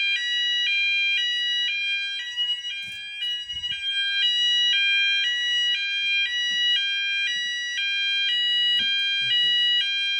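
Electronic fire alarm sounder of a C-TEC conventional fire alarm system sounding a two-tone alarm, switching between a high and a low tone about every half second. It has been set off by a manual call point being triggered during a weekly test.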